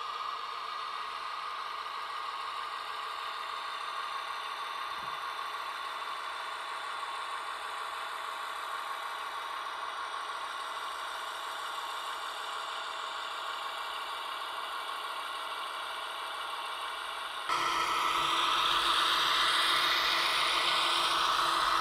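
Digital diesel engine sound of a DB V60 shunting locomotive, played by an ESU LokSound decoder through the H0 model's small speaker, running steadily while the model shunts. It gets louder about 17 seconds in, and the engine note then rises.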